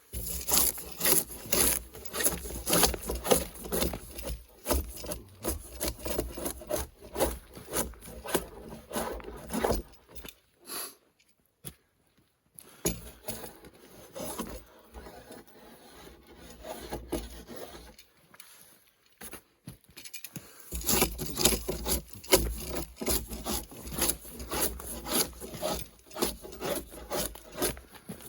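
A hand tool rasping through wood in quick, uneven back-and-forth strokes. It stops briefly about eleven seconds in, resumes, and is louder again from about twenty-one seconds.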